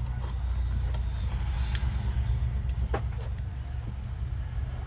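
Light clicks and rustles of copper coil wire and insulation paper being pushed into the slots of a ceiling-fan stator during hand rewinding, over a steady low background rumble.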